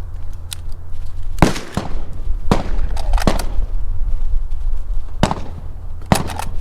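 Gunshots at a shooting range: about eight sharp shots in uneven groups, each with a short echo, over a steady low rumble.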